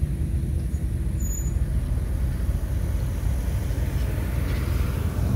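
Classic cars driving past one after another, their engines making a steady deep running sound.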